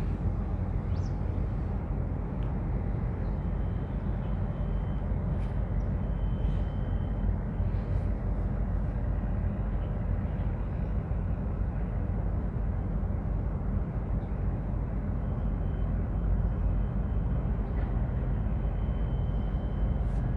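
Steady low rumbling harbour ambience, with a faint high-pitched tone that comes and goes.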